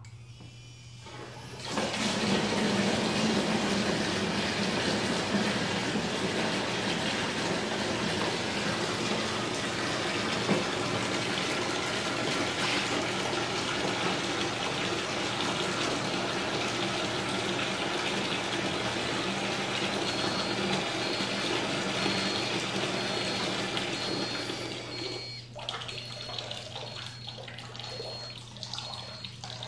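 Water rushing steadily through a copper supply pipe once a Z-Wave motorized shut-off valve is opened from a tablet app. Near the end a high electronic beeping starts, and the flow cuts off suddenly as the valve closes in response to the water-leak sensor being wetted.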